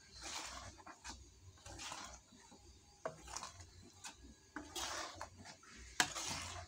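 A spatula stirring and scraping thick ground chili paste in a metal pan, a wet swish with each stroke, with two sharp clicks of the spatula against the pan, about three and six seconds in.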